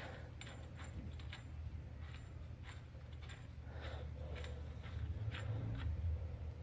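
Faint, irregular light metallic clicks, roughly two a second, as a new axle nut is run onto the front axle shaft by hand and tool, over a steady low hum.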